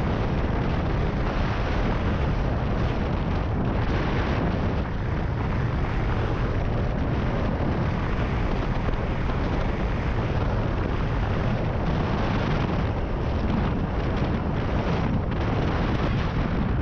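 Cruiser motorcycle riding at a steady speed, with wind rushing over the microphone on top of the engine's low running drone. The sound stays at an even level throughout.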